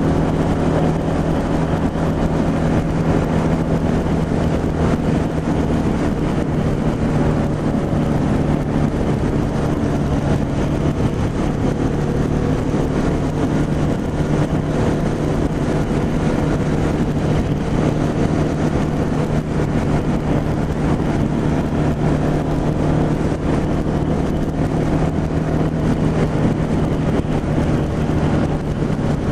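Motorcycle engine running at a steady highway cruise, with wind rushing over the helmet-mounted microphone.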